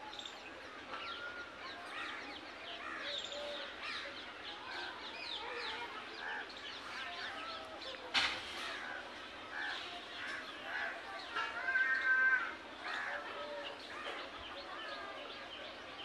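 Wild birds calling outdoors: many short, high chirps and whistles keep going throughout, with a sharp click about eight seconds in and a louder call with several stacked tones near twelve seconds.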